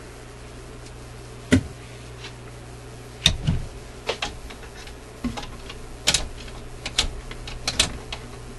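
Record player's control and speed-change mechanism being worked by hand, its levers and linkage clicking and clunking between positions: one sharp click about one and a half seconds in, then a run of irregular clicks through the second half, over a steady low hum.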